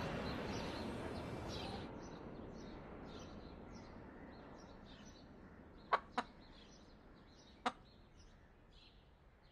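Jet aircraft noise fading away, with faint bird chirps over it and three sharp clicks, two close together about six seconds in and one near eight seconds.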